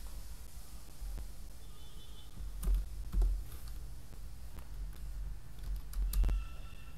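A few scattered computer keyboard keystrokes, sharp separate clicks, over a steady low background hum.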